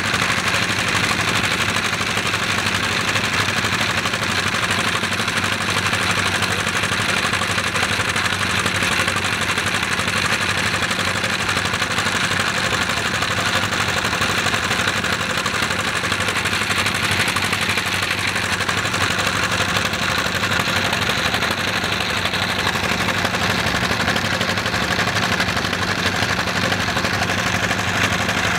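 Small motorboat's engine running steadily at an even pace, with no change in speed.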